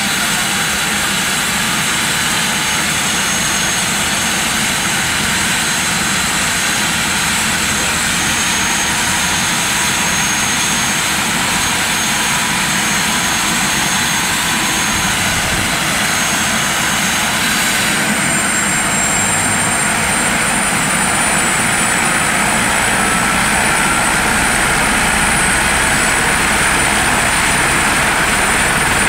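Police helicopter running loudly and steadily, its high engine whine stepping up in pitch about two-thirds of the way through.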